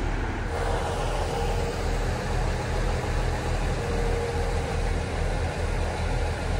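Diesel engine of a KiHa 100 railcar idling at the station: a steady low rumble with a faint hum above it.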